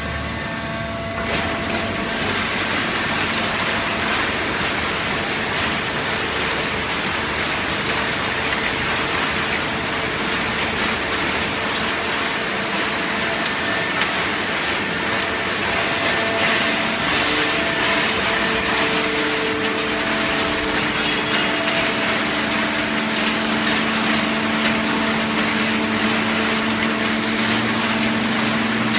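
Horizontal hydraulic baling press for shredded paper running: steady machine noise with a continuous motor-and-pump hum, which grows stronger and shifts in tone in the second half.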